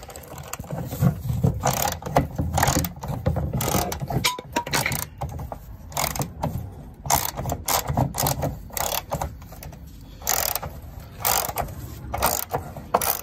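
Socket ratchet clicking in uneven strokes with some metal clatter as a 15 mm fuel-tank strap bolt is run in.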